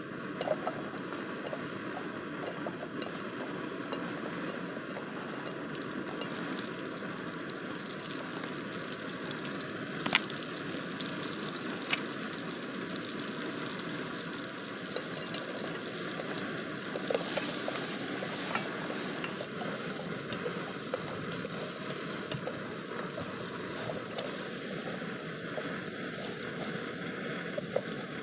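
Sliced onions sizzling steadily in hot oil with spice seeds in a small stainless steel camping pot, stirred now and then, with a few sharp clicks.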